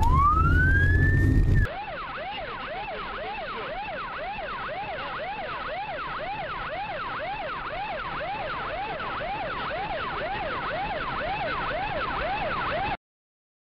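Police car siren: a long wail rising in pitch for the first second or two, then a fast yelp that rises and falls about twice a second. The yelp cuts off abruptly near the end.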